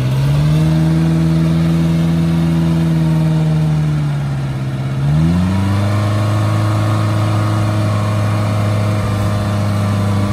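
Maruti Suzuki Gypsy King's four-cylinder petrol engine revved and held at a steady speed, dropping briefly about four seconds in, then climbing to a higher held pitch for the rest.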